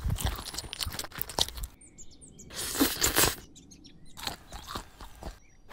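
Crunchy eating foley: bites and chewing of fried food in several short bursts, the loudest crunch about three seconds in, over a background of chirping birds.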